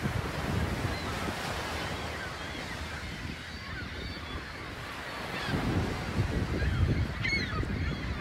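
Seabirds calling in short, scattered cries, with one clearer call about seven seconds in. Water and wind noise wash underneath and swell near the end.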